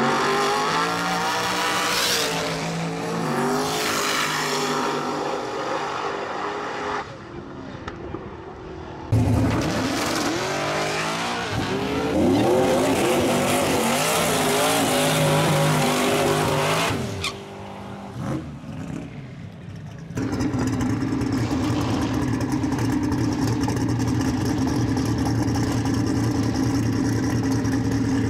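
Two drag cars launching off the line, their engines rising in pitch as they pull away. About nine seconds in, a turbocharged Fox-body Mustang does a burnout, engine revved hard with tire squeal, and from about twenty seconds in it holds a steady high rev as its tires spin.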